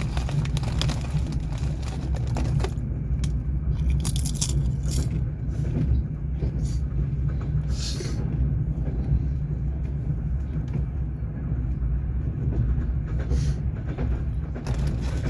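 Passenger train running, heard from inside a sleeper carriage: a steady low rumble of the wheels and running gear, with a few scattered clicks and rustles.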